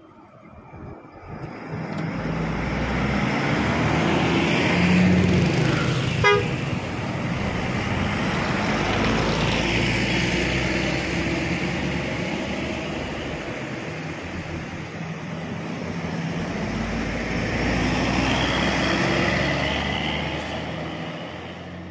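Tour bus engine running close by, swelling and easing as the bus moves, with one sharp click about six seconds in.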